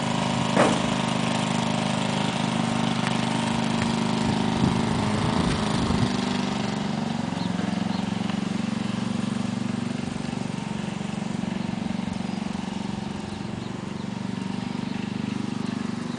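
An engine running steadily, its pitch shifting slightly about six seconds in, with a few sharp knocks in the first six seconds.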